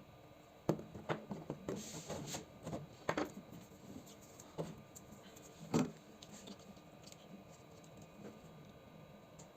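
Small clicks, taps and rattles of a PS4 controller's plastic parts being handled and worked on: a quick cluster in the first few seconds and a single louder knock about six seconds in.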